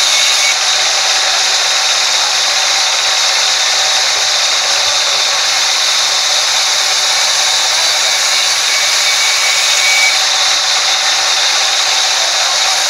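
Sawmill band saw blade cutting lengthwise through a log, a loud, even hiss with a steady high whine that holds without a break.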